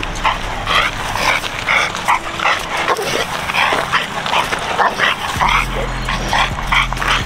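Bully-breed dog yipping and whining in quick excited bursts, two or three a second, as it strains against resistance bands tied to a tree. A low steady hum joins a little after five seconds in.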